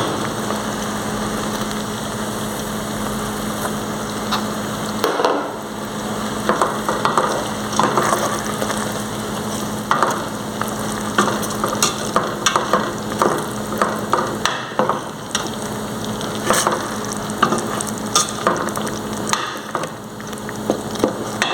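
Sugar and pineapple syrup sizzling in a pan over low heat. From about five seconds in, a spoon stirring it ticks and clinks against the pan in irregular strokes, and a low steady hum stops around then.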